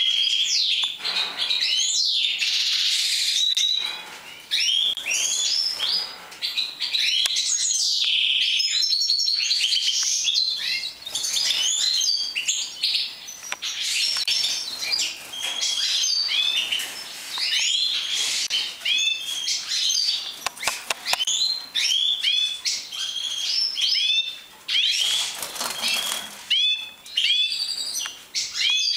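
A cageful of European goldfinches of the large 'major' form chirping and twittering, many short, quick calls overlapping at once. A couple of brief rustling bursts break in, about two seconds in and near the end.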